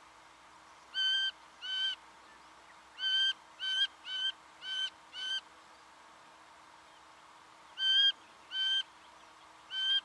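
Singing honeyeater calling: a series of short, loud notes of steady pitch, two, then a quick run of five, then after a pause three more.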